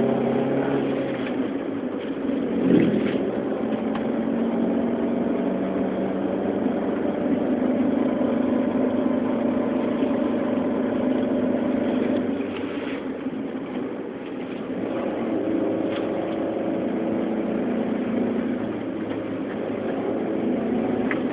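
Car engine and road noise heard from inside a moving car, the engine note shifting in pitch as it drives. A single thump about three seconds in.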